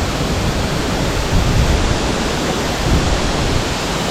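Small waterfall and rushing stream, water pouring over rocks in a steady loud rush.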